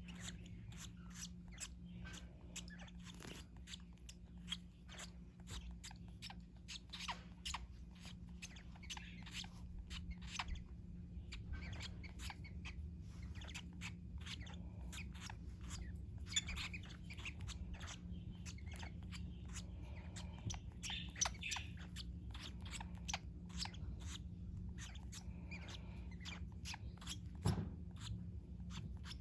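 Fischer's lovebirds chirping softly among many small sharp clicks and nibbling sounds, over a steady low hum.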